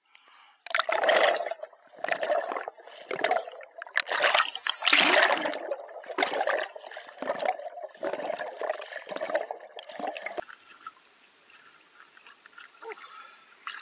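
Sea water rushing and bubbling in muffled surges, about one a second, as a swimmer strokes with the camera held under water. About ten seconds in it cuts to a much quieter stretch of faint water lapping at the surface.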